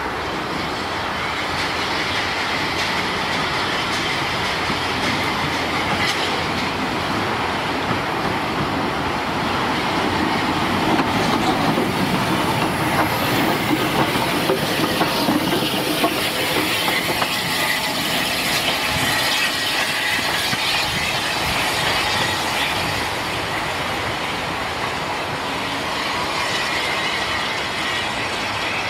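Bulleid Battle of Britain class steam locomotive 34081 '92 Squadron' running past at close range, its wheels clattering over the rail joints, loudest about halfway through as it goes by.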